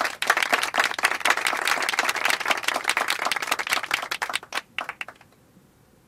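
Applause: many hands clapping in a dense patter that thins out to a few last claps and stops about five seconds in.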